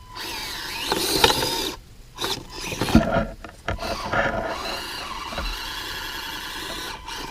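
Axial SCX24 micro crawler's small electric motor and gears whining as it climbs a steep sandy slope. The whine comes in stop-start spells, rising and falling, for the first few seconds, then runs steadily.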